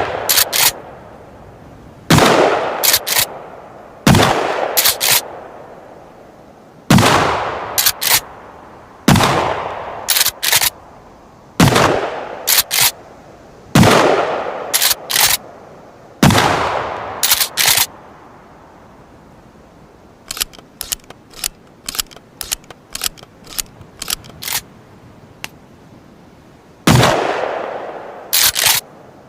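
Remington 870 TAC-14 pump-action shotgun fired eight times, each shot with a long fading echo and followed about a second later by two sharp clacks as the slide is pumped back and forward. Partway through, a run of a dozen or so quick clicks comes before the last shot near the end.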